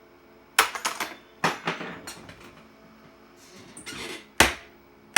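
Irregular sharp clicks and clacks from an IBM Model M buckling-spring keyboard being pressed and handled while its keys are tested, with the loudest clack about four and a half seconds in. A faint steady hum lies underneath.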